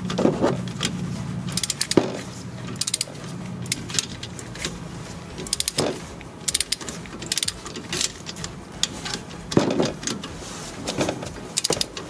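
Ratchet head of a click-type torque wrench clicking in short bursts as it is swung back and forth, tightening a rear brake caliper bolt toward 35 newton meters. A steady low hum runs underneath.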